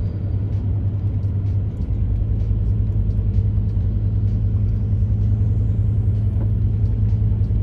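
Steady low rumble of a 2001 Ford E-350 camper van driving slowly on a paved campground road, heard from inside the cab: engine and tyre noise.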